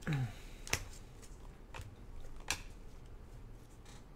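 Glossy chromium trading cards being flipped one behind another in gloved hands, giving a few sharp card clicks and snaps at irregular intervals.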